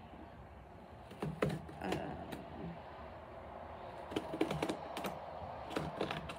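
Packaging handled by hand: scattered clicks and crinkles of box and wrapping, in a few short clusters.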